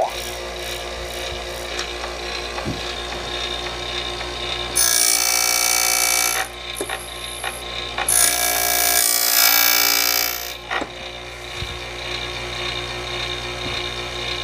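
Key-duplicating machine running, its cutter wheel cutting a house key blank. The motor hums steadily, with two louder, higher-pitched stretches of grinding about five and eight seconds in as the cutter bites into the blank.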